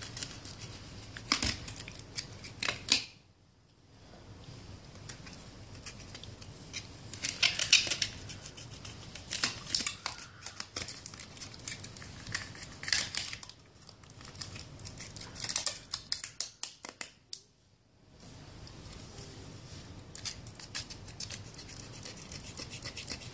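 Snap-off utility knife blade cutting and scraping through thin plastic from a bottle: irregular runs of sharp clicks, crackles and scrapes, broken by two short near-silent gaps.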